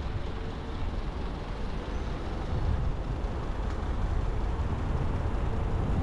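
Wind rumbling on the microphone of a rolling electric bike, with tyre noise, growing slowly louder as the bike picks up speed.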